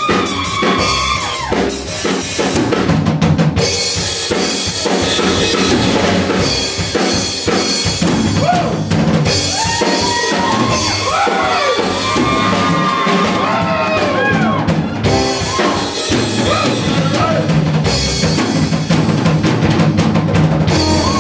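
Live band music with the drum kit to the fore: snare hits, rimshots, bass drum and rolls.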